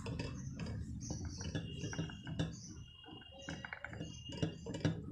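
Stirring rod tapping and scraping against the side of a glass beaker as a thick, milky castor-oil mixture for Turkey Red Oil is stirred: light, irregular clicks and knocks.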